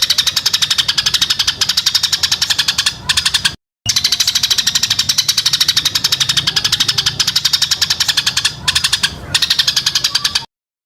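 Songbird's rapid-fire rattling song, a fast run of sharp high notes repeated many times a second, breaking off briefly twice.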